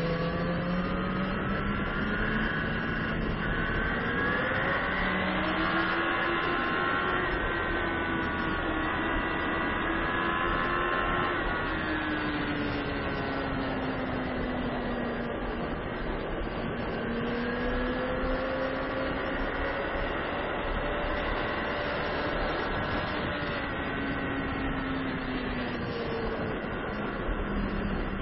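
Onboard sound of a sportbike's engine at track speed. Its pitch rises and falls several times as the bike accelerates and slows for corners, over a steady rush of wind.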